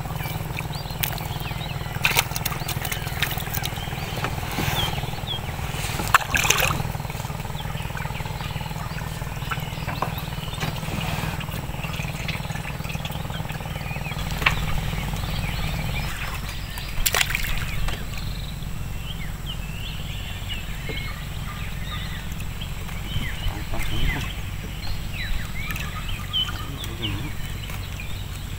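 Open-air ambience in a small wooden fishing canoe: a low steady rumble that gets stronger about halfway through, scattered sharp clicks and knocks from fishing line and gear being handled, and faint short high chirps.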